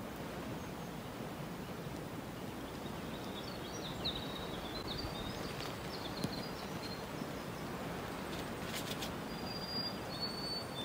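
Songbirds singing in mountain forest over a steady background hiss: quick chirpy phrases in the middle, then near the end a bird's long, steady, high whistled notes, each a step lower than the one before. A couple of faint clicks come just before the whistles.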